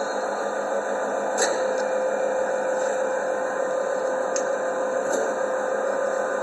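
Tongil TIPL-5 engine lathe running under power: a steady hiss with one constant mid-pitched whine, and a few faint ticks about a second and a half in and again near the end.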